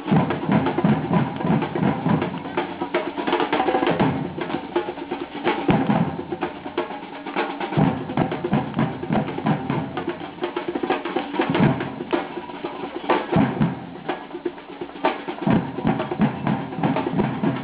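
Percussion ensemble drumming: dense, continuous strikes with snare rolls and bass drum beats.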